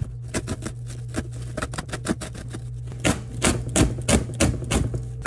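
A woven plastic shipping sack being torn open by hand: a rapid run of crackling rips and rustles that turn into bigger, more spaced tearing strokes in the second half.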